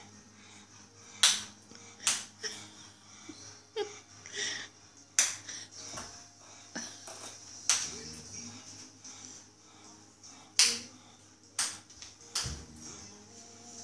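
Ping pong ball bouncing on hard surfaces: a series of sharp single clicks, one every one to three seconds.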